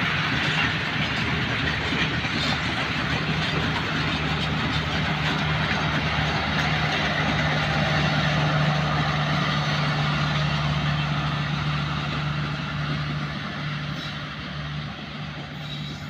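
Pakistan Railways passenger coaches rolling past on the rails in a steady clatter and rumble, with a steady low hum, strongest through the middle, as the train's power van (its generator car) goes by. The sound fades over the last few seconds.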